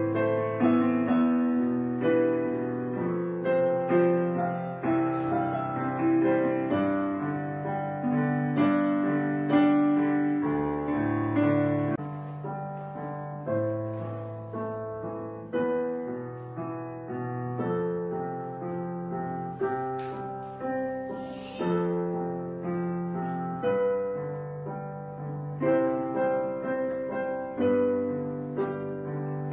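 Background piano music: a steady flow of struck notes and chords, each dying away.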